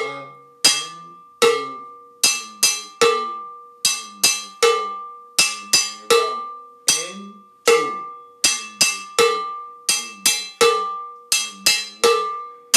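Handheld cowbell (salsa campana) struck with a stick, playing a steady repeating pattern in 3-2 clave. Accented ringing strikes fall about every 0.8 s, with lighter strokes between.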